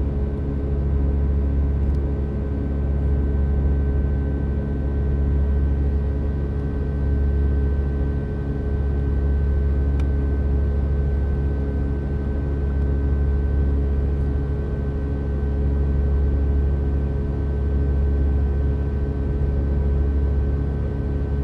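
Boeing 757 cabin during the climb: the twin turbofan engines and airflow make a steady, loud low rumble, with a few steady engine tones over it and a level that gently swells and eases. A faint tick comes about ten seconds in.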